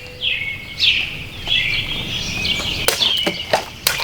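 Birds chirping, then about three seconds in a quick run of sharp cracks and knocks as a serrated knife blade slashes through plastic bottles.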